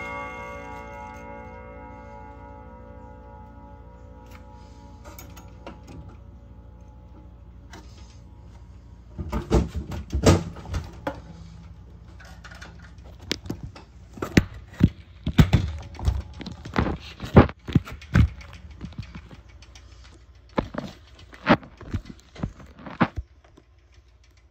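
Chime rods of a Hermle grandfather clock movement ringing out after a strike, several tones fading away over the first five or six seconds. From about nine seconds in, a run of irregular sharp knocks and bumps, the loudest sounds here, as the phone is handled against the wooden clock case.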